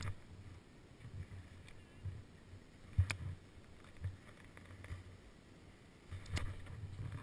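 Skis thumping and rumbling over packed mogul snow, heard as a muffled low rumble through a GoPro's housing. There is a sharp knock about three seconds in and another near the end.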